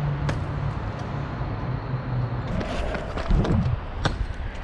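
Street traffic noise with a steady low hum, and knocks and a thud of sneakers landing on a steel tube railing during a parkour jump.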